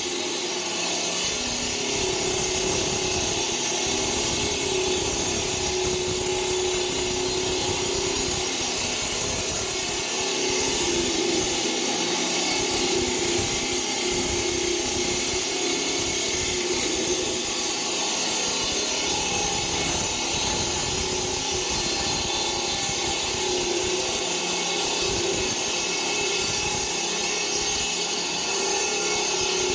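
Electric-motor concrete groove cutter with its diamond blade cutting a wet concrete floor: a steady grinding din with a constant hum underneath.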